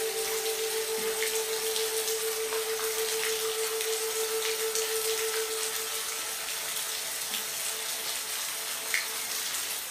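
Steady rain hiss with scattered sharp drop ticks. A single soft sustained music tone is held underneath for the first six seconds or so, then fades out.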